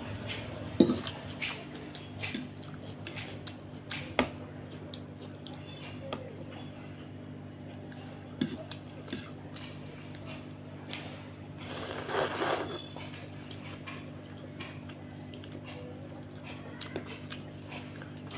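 Metal fork clicking and scraping on a plate while noodles are eaten, with short sharp clicks throughout. A longer slurp of noodles comes about twelve seconds in.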